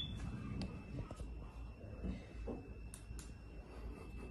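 Quiet room noise with a few faint, soft clicks and a faint steady high-pitched whine.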